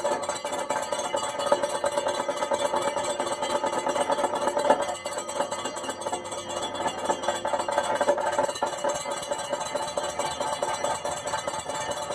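Live Kathakali percussion accompaniment: dense, fast drum and metallic strikes over steady ringing tones, with one louder hit near the middle.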